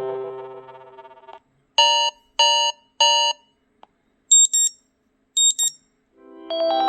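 Preloaded ringtones playing through a Kyocera DuraForce Pro phone's speaker. One musical tone fades out, then come three identical short electronic alarm beeps in an even rhythm, two brief high-pitched double chirps, and near the end another musical ringtone starts.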